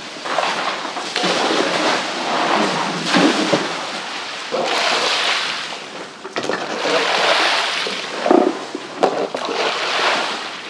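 Masses of wet mullet sliding off a truck bed and splashing onto a wet floor covered with fish, in about four surges a second or two long, with a few sharp wet slaps among them.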